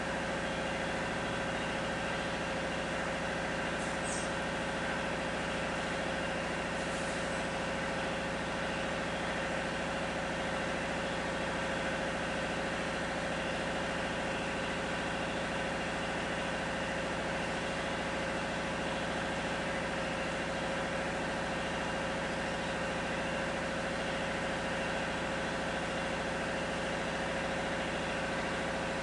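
A steady mechanical hum, like an engine or machine running, with two brief faint high squeaks about four and seven seconds in.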